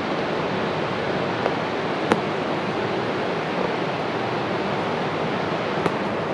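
Steady, even rushing noise with a couple of faint clicks.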